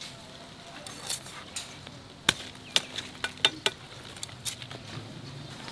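A series of sharp knocks, about eight of them, coming at uneven intervals over three or four seconds.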